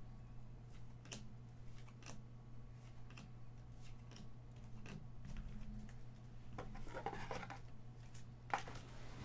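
Glossy baseball trading cards handled one at a time, each card slid off the stack with a light click or swish about once a second. A denser shuffling rustle comes near the end, then a single sharp knock.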